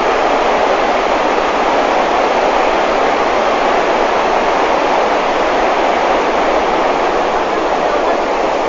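Steady rushing of a fast whitewater torrent pouring over rocks.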